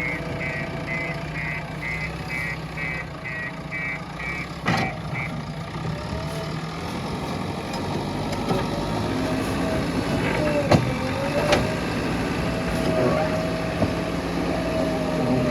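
JCB 3DX backhoe loader's diesel engine running, its reversing alarm beeping about twice a second for the first five seconds. After that the engine pitch dips and rises under load, with a few sharp knocks.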